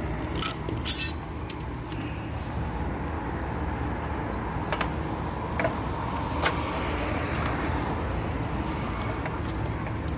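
Small clicks and light rattles of a plastic float level switch being handled, a couple close together near the start and a few single ticks later, over a steady low background rumble.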